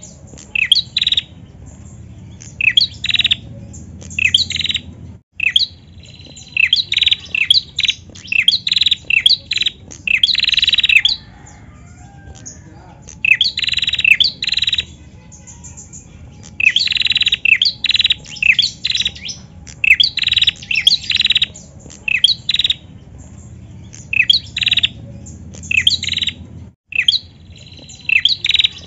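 Ashy tailorbird calling: rapid runs of sharp, high, falling chirps, each run lasting a second or two, with short pauses between runs.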